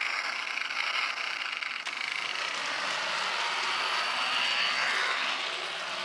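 Toy motorcycle running across a wooden floor: a steady whirring, engine-like noise that swells slightly about four seconds in.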